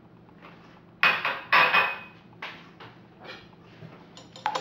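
Sugar being tipped into a mixing bowl over an egg: two short gritty rustles about a second in, then a few fainter scrapes and a sharp clink near the end.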